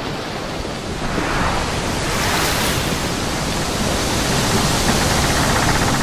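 A steady rushing noise that swells about two seconds in and then holds.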